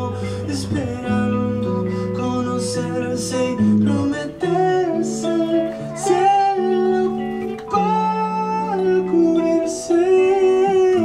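Live band music: electric guitar and keyboards, with a man singing over them. The deep bass notes drop out about four seconds in, leaving the voice and higher keyboard and guitar lines.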